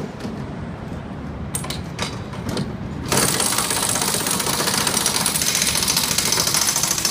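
Pneumatic pit-stop wheel gun running in a fast, continuous rattle, starting about three seconds in after a few scattered clicks and knocks.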